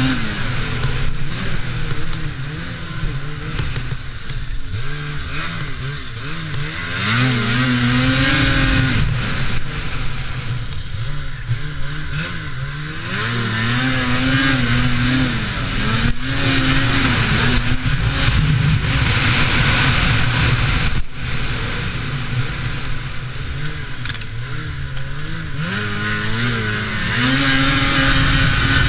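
Lynx Rave RE 850 E-TEC snowmobile's two-stroke twin engine running under way, its revs climbing and falling back several times as the throttle is opened and eased off.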